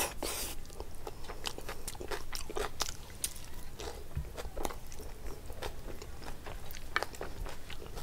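A person chewing a mouthful of chicken curry and rice, with many short, irregular mouth clicks.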